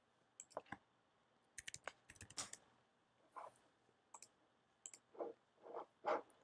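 Faint computer mouse clicks and keyboard keystrokes, scattered singly with a quick run of several about two seconds in.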